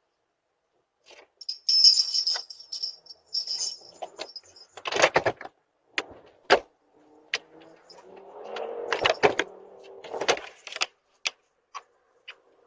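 Metallic jingling for about two seconds, then a string of sharp clicks and knocks.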